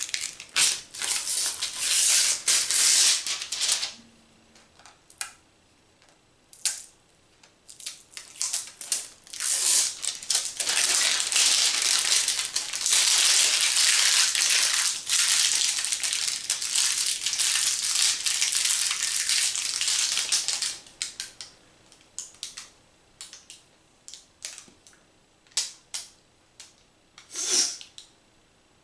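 Clear plastic protective film being peeled off a new tablet and crumpled in the hands: bursts of crinkling, then a long unbroken crinkle, giving way about two thirds of the way through to scattered short clicks and taps.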